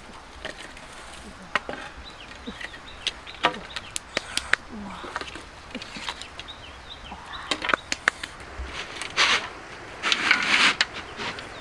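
Sharp clicks and knocks of wooden sticks being handled at an open wood fire, then a rough scraping noise about nine seconds in and again about ten seconds in as a large metal wok is moved.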